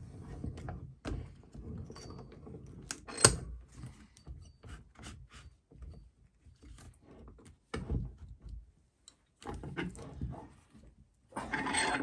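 Knocks and clunks of a wooden engine base being set between the jaws of a steel bench vise and the vise being wound tight by hand, with one sharp knock about three seconds in.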